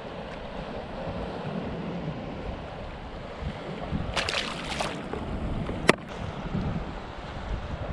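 A tautog dropped back into the sea from a kayak, splashing about four seconds in, followed by a single sharp knock. Wind and water lapping run underneath.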